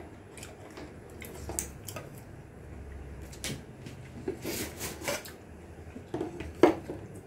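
Scattered light clinks and knocks of tableware during a meal: a spoon on plates and bowls and an aluminium pot and its metal lid being picked up and handled, the loudest knock about six and a half seconds in.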